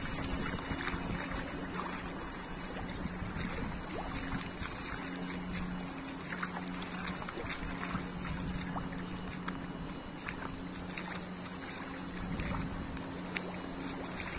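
Water on a rain-flooded road: a steady wash of water noise with scattered light ticks and splashes, under a low steady hum that breaks off and returns.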